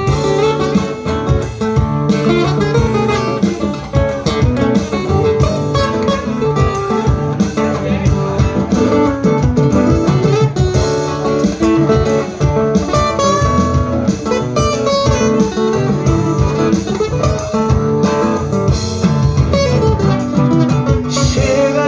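Instrumental break in a band's song: guitar playing over a steady beat from the rhythm section, with no singing.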